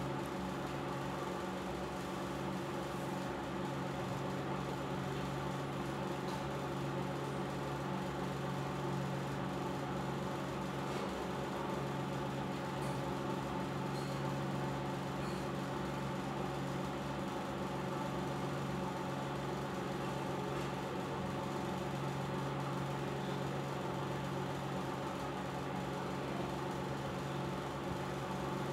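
A steady, unchanging low machine hum made of several fixed tones, with a faint hiss above it.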